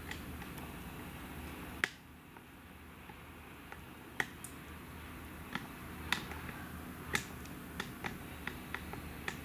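Irregular sharp clicks and ticks, roughly one a second, over a low steady hum. The loudest click comes about two seconds in, after which the background drops and slowly returns.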